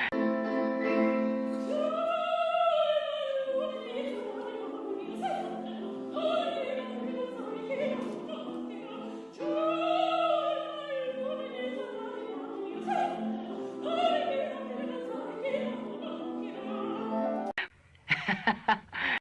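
Operatic solo singing over instrumental accompaniment: a sung line with long, arched held notes about 2 and 10 seconds in. Near the end the phrase breaks off and a few short, loud notes follow.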